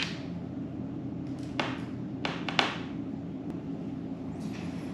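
Quiet handling sounds: a few short scrapes from a small hex driver working the mounting screws out of a laptop hard drive, over a low steady hum.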